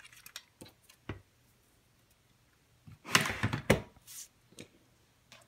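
Light knocks and paper rustle from crafting by hand: a plastic scrapbooking punch being set down and punched cardstock being handled on a cutting mat. A few faint clicks come first, then a cluster of louder knocks about three seconds in.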